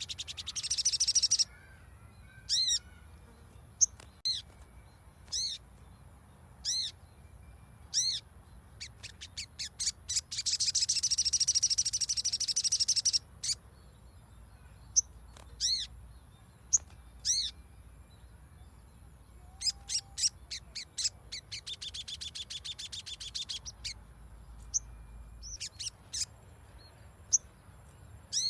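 Sogon (sogok ontong) calling: sharp single high call notes repeated at irregular intervals, broken up by fast chattering trills, the longest lasting about three seconds near the middle and another about two seconds later. It is a lure call recording meant to trigger a quiet sogon into song.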